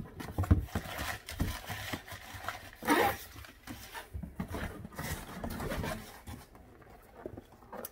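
Cardboard boxes being handled: rustling, scraping and knocking against one another as hands rummage inside a shipping carton, with the loudest scrape about three seconds in and quieter toward the end.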